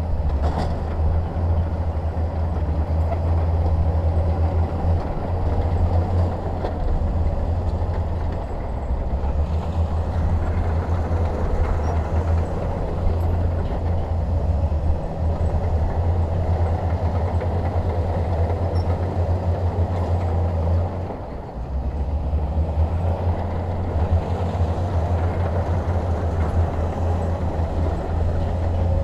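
Bulldozer's diesel engine running steadily under load with a deep low drone, easing off briefly about two-thirds of the way through before picking up again.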